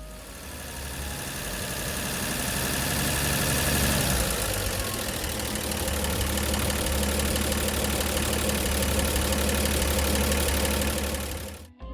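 A 1959 Delco-Remy DC generator spinning on its bearings. It builds up over the first few seconds to a steady whir, runs smoothly, then stops abruptly just before the end.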